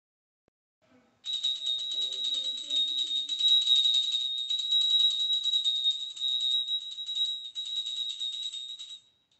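Small puja hand bell rung rapidly and without pause for about eight seconds, one bright high ringing tone. It starts about a second in and stops just before the end.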